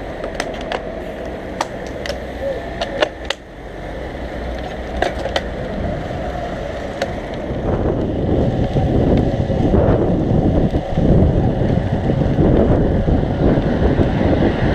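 Wind noise and road rumble on the microphone of a camera on a moving road bike, with a few sharp clicks in the first few seconds; the rumble grows louder after about four seconds as the bike picks up speed.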